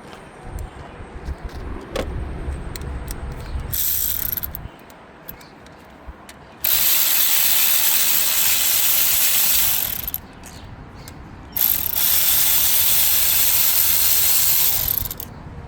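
Ratchet wrench clicking in two long runs of about three seconds each, with a short break between, backing out a bolt on the engine. Quieter handling noises and a single click come before the first run.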